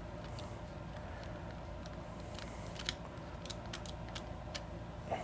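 Faint, scattered small plastic clicks and ticks as an opened Xbox Elite 2 controller's parts are handled and pried at with a tool, over a steady low hum.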